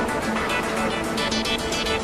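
Background music with sustained tones and a steady pulse.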